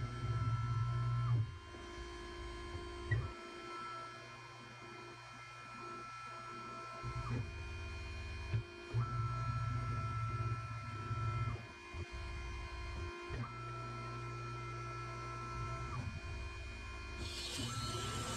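Horizontal band saw cutting carbon-steel box tubing: a steady motor hum with a higher whine that drops out and comes back every two to three seconds. A hiss starts about a second before the end.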